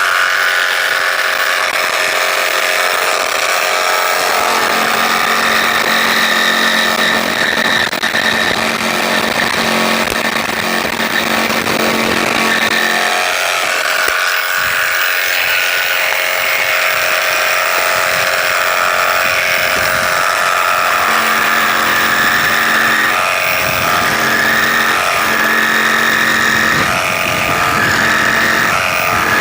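Power saw cutting a bird's mouth notch into a timber rafter: the motor runs without a break, its lower note dropping out and returning as the blade works through the wood.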